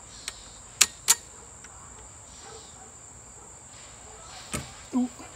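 Sharp clicks and knocks of metal cart parts being fitted together, a carriage bolt and the frame tubes, two loud ones about a second in and two more near the end, over a steady high insect chirring.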